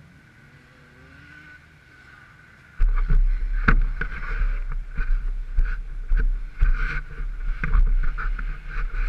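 Faint background hum, then about three seconds in a sudden loud low rumble with irregular knocks and thumps: an action camera's microphone being jostled and rubbed against fabric as the camera is moved.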